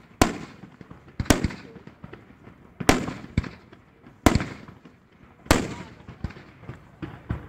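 Aerial fireworks bursting: five sharp bangs roughly every second or so, each trailing off in a rolling echo, with smaller pops in between.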